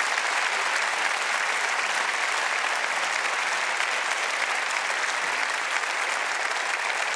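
Studio audience applauding, a steady dense clapping that holds on without a break.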